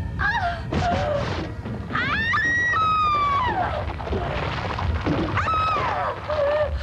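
Drawn-out, eerie wailing cries that glide up and then fall in pitch, several in a row, over a steady low rumble.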